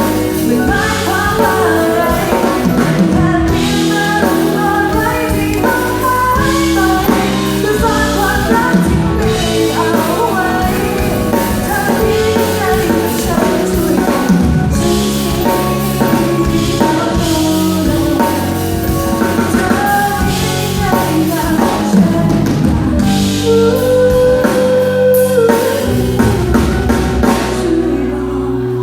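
A woman singing a pop song with a live band, drum kit and guitar behind her.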